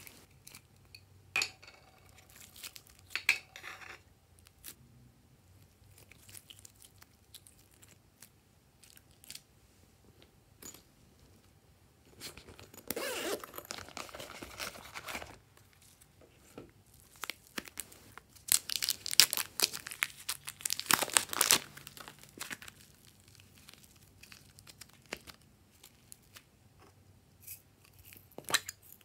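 Glossy slime being peeled and pulled out of silicone molds and containers: sticky tearing and crackling. Scattered small clicks, with longer bursts near the middle and about two-thirds through.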